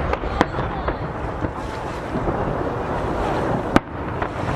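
Steady wash of sea waves against a jetty with wind buffeting the microphone, broken by the sharp bangs of fireworks bursting overhead: two near the start and a louder one near the end, their reports echoing off the nearby mountains.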